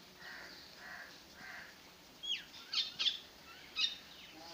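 Birds chirping: a handful of short, high chirps, several falling steeply in pitch, from about halfway through, after a few faint soft sounds.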